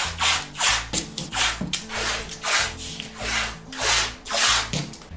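Blue masking tape being pulled off the roll in quick strips: repeated loud rasping rips, about two a second.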